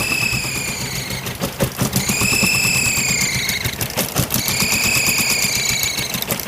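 Toyota 22R four-cylinder engine running with a high-pitched squeal that rises and falls and comes back about every two seconds, over a fast, steady ticking. The owner suspects an EGR or vacuum leak and fears a bent valve.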